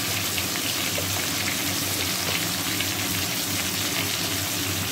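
Potato chunks coated in turmeric frying in oil in a kadai: a steady sizzle with faint crackles.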